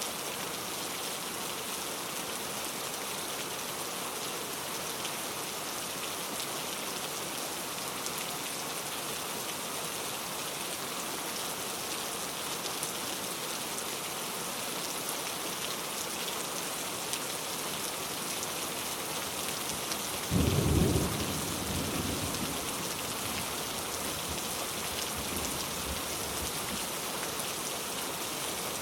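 Steady heavy rain falling on a surface. About two-thirds of the way through, a sudden short low rumble rises above the rain for about a second, then fades over the next few seconds.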